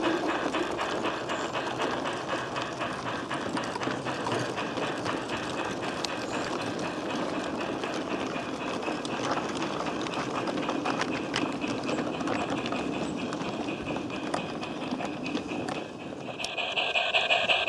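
Model steam train running past: rapid, regular steam chuffing from the locomotive's Dallee soundcard, with the wagons' wheels rattling on the track. The sound dips briefly near the end, then a louder, sharper chuffing starts.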